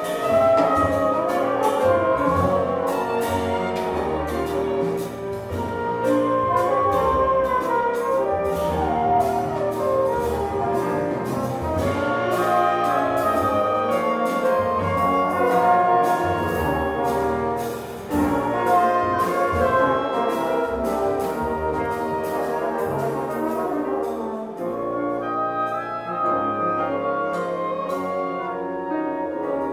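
Live jazz chamber ensemble (flute, clarinet, saxophone, bassoon, trumpet, trombone, violin, cello, piano, double bass and drums) playing together, with the horns prominent. Sharp, frequent hits run through the music and grow sparser near the end.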